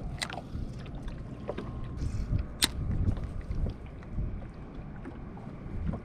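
Water lapping against a small boat's hull, with wind rumbling on the microphone. A couple of sharp clicks cut through, the loudest a little over two and a half seconds in.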